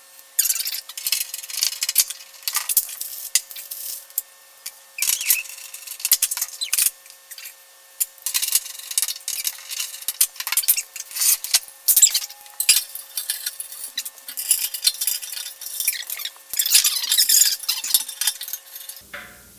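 Sped-up sound of a pellet grill being assembled: a fast, continuous jumble of scraping, rubbing and clinking of metal parts and screws, raised in pitch to a squeaky chatter.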